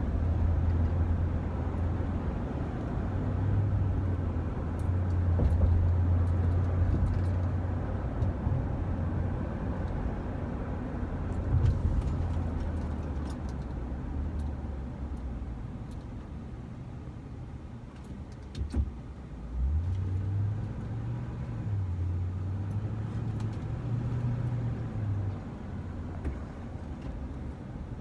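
A car driving, with a steady engine hum and road noise; the engine note steps up and down as it speeds and slows.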